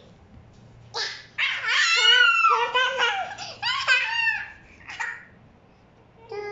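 Small children laughing and squealing in high pitch, starting about a second in and dying away around five seconds.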